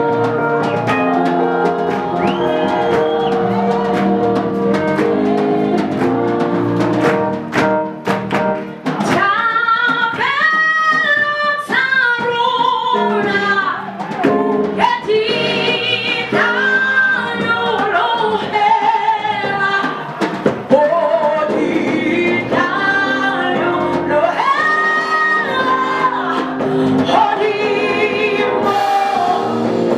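Live gospel music: keyboard chords with a few drum hits for the first several seconds, then a woman singing lead into a microphone over the band.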